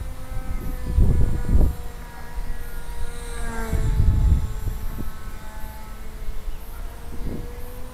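A foam RC P-40 Warhawk model's motor and propeller hum steadily overhead in flight, the pitch drifting slightly up and down. Low rumbles of wind on the microphone come about a second in and again around four seconds.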